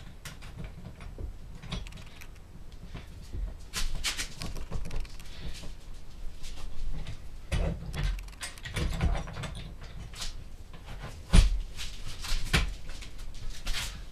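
Irregular metal clicks, clinks and knocks from a homemade comb-bar dent puller working a dented car body panel, pulling on welded-on washers a little at a time. A single sharp knock about eleven seconds in is the loudest.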